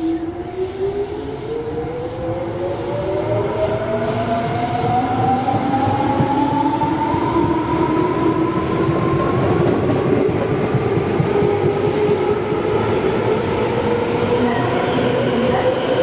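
Tobu 9000 series electric commuter train accelerating away from the platform. Its traction motors give a whine that climbs steadily in pitch for about ten seconds and then levels off, over a growing rumble of wheels on rail.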